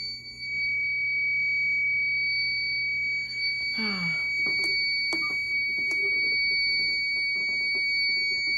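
Silent Knight SK2 fire alarm panel's built-in piezo buzzer sounding one steady, unbroken high-pitched tone after a pull station has been pulled. The panel is faulty, so the wired alarm horns stay silent and only the panel's buzzer is heard.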